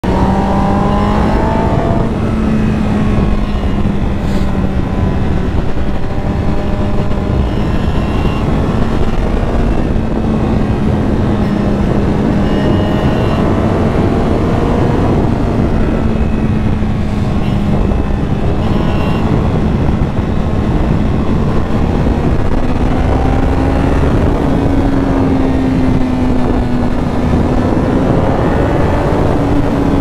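Honda CBR1000RR SP inline-four engine running at steady cruising revs, rising a little twice near the end, over heavy wind and road noise. Underneath is a subtle metallic grinding at around 5,500 rpm, the sign of a failing cam chain tensioner.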